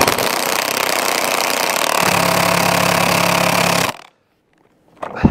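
Milwaukee cordless impact wrench driving a hydraulic cylinder piston bushing tight, running for about four seconds before cutting off. About halfway through its sound grows heavier and more rhythmic as it hammers against the tightening bushing.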